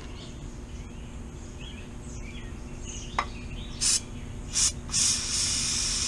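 Aerosol chain cleaner sprayed onto a motorcycle drive chain: two short hisses about four seconds in, then a longer steady spray near the end. A single click comes just before the first hiss.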